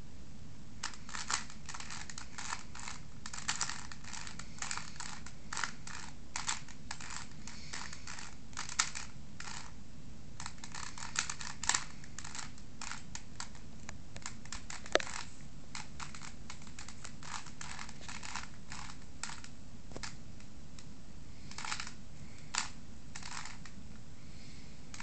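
Rubik's cube being turned quickly by hand: rapid plastic clicking and clacking of the layers in irregular bursts, with an occasional louder snap.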